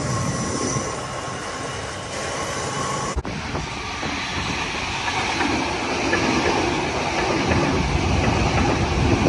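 Sydney Trains Waratah double-deck electric train running past along the platform, growing louder over the last few seconds as it draws level. An abrupt cut about three seconds in breaks off an earlier steady train sound.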